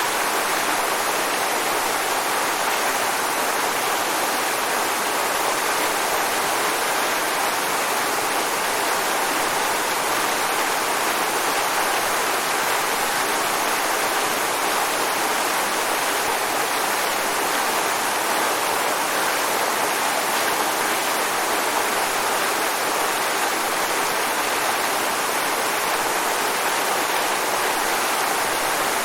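Waterfall: a steady, even rush of falling water with no break or change.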